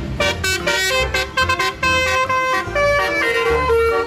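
Telolet bus horn, a multi-tone musical horn, playing a quick tune of stepped notes with several tones sounding together.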